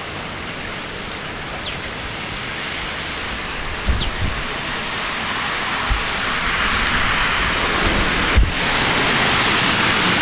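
Steady hiss of heavy rain in a thunderstorm, swelling louder about six seconds in, with a car's tyres swishing through water on the flooded street near the end. A few short low thumps break in along the way.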